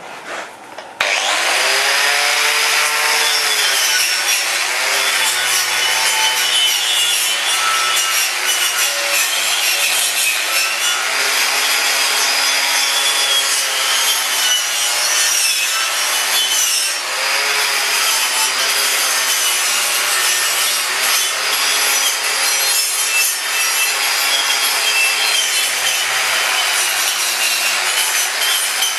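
Handheld power tool with an abrasive or wire wheel working over freshly welded steel, cleaning up the welds. It starts suddenly about a second in and runs steadily, its motor pitch wavering as it is pressed against the metal.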